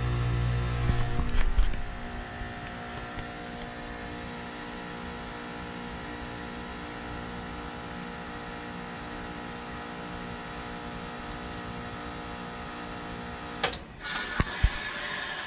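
2019 Carrier Comfort 14 heat pump outdoor unit in a defrost cycle. A loud low hum cuts out with a few knocks about a second and a half in, leaving a quieter steady hum. Near the end a sharp click and a sudden burst of noise with knocks mark the unit switching over.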